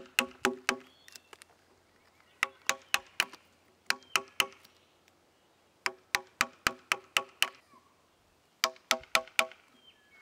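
A chisel tapped with a mallet, cutting into the end grain of a wooden post: quick runs of four to eight light taps, about five a second, with short pauses between. Each tap is a sharp wooden knock with a brief ring.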